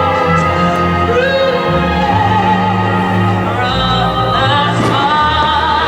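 Music with a singing voice holding long wavering notes over sustained low notes.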